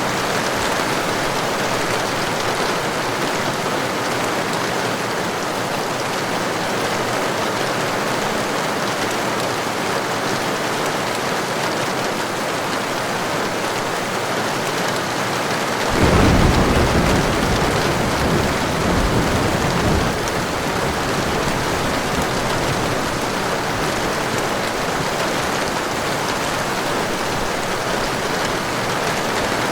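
Steady heavy rain. About halfway through, a rumble of thunder rolls in suddenly, swells again a few seconds later and fades back under the rain.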